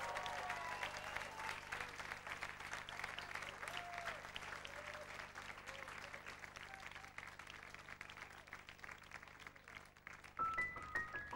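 Concert audience applauding and cheering, the clapping thinning out over several seconds. About ten seconds in, a keyboard starts playing a few clear single notes.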